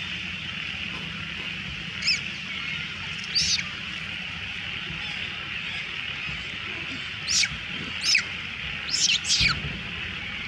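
Monkey giving short, high-pitched squealing cries, each sweeping down in pitch: two single cries, then a quicker run of four near the end, over a steady high hiss.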